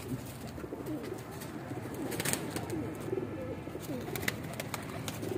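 Domestic flying pigeons cooing: a series of low, wavering coos, with a couple of sharp clicks about two and four seconds in.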